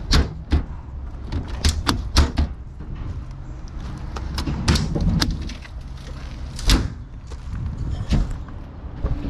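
Irregular sharp knocks and clunks, about a dozen, over a steady low hum.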